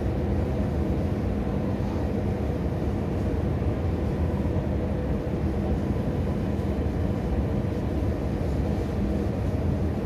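A long escalator running, heard while riding it: a steady low mechanical rumble and hum.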